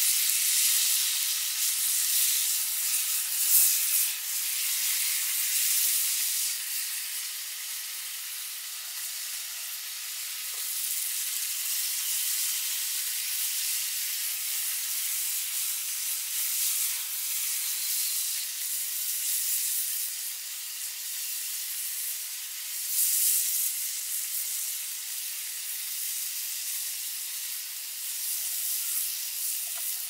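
Steady, high hissing noise with a crackling texture, swelling louder about three and a half seconds in and again about 23 seconds in.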